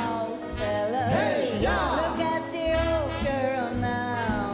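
Stage musical number: singers performing a show tune with live band accompaniment, sung lines with wide vibrato over a bass beat about once a second.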